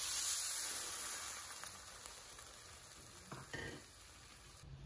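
A cup of water poured onto a mound of granulated sugar in a pan, the splash followed by a soft hiss that fades away over the next few seconds.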